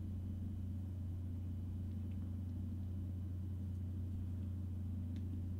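Steady low background hum of room tone, with a couple of faint clicks about two and five seconds in.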